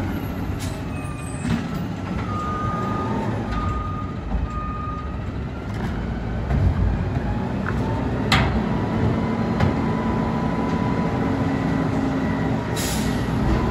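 Autocar ACX garbage truck with a Heil Freedom front-loader body, running on compressed natural gas, its engine idling steadily with thin whining tones over it. A sharp bang comes about eight seconds in, and a short burst of air hiss near the end.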